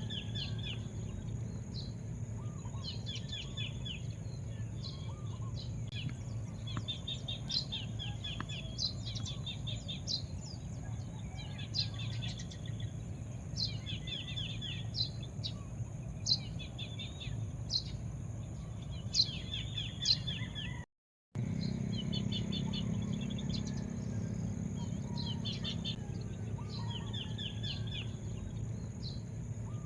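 Small birds chirping in repeated short trills, several every couple of seconds, over a steady low rumble and a steady high whine. The sound cuts out completely for about half a second about two-thirds of the way through.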